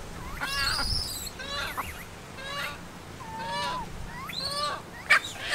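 An animal calling over and over: about six short, pitched calls in a row, roughly one a second.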